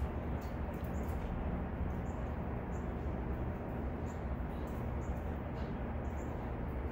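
Steady outdoor ambience of a low hum and hiss, with faint short high chirps coming about once or twice a second.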